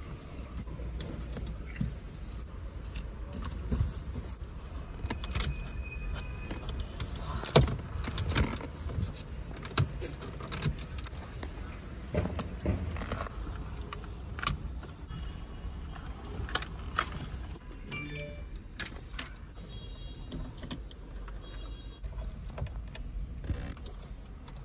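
Plastic dashboard trim clips clicking and snapping as a BMW X5 F15's interior trim strip is pried off with a plastic pry tool, with irregular plastic knocks and rattles as the panel and display are handled, over a low steady rumble. The sharpest snap comes about seven and a half seconds in.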